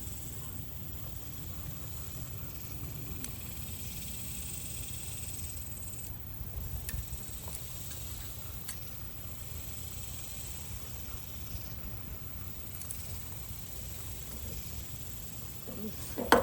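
Steady outdoor ambience: a high, hissing buzz that swells and fades, over a low rumble, with a few faint clicks.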